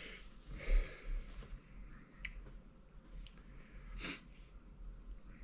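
A man breathing hard and sniffing, with a sharp, loud breath about four seconds in, as he copes with a mouth burned by Carolina Reaper–spiced popcorn.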